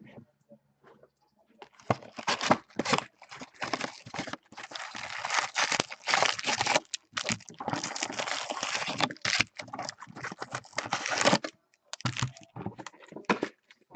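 Plastic wrapping being torn and crinkled as a sealed box of trading cards is opened. Dense rustling and sharp crackles start about two seconds in and run for about ten seconds, with a few more crackles near the end.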